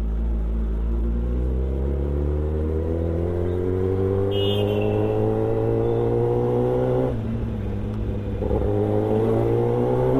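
Kawasaki ZX-10R's inline-four engine pulling as the bike accelerates, its pitch climbing steadily for about seven seconds. The pitch then drops off and starts climbing again near the end.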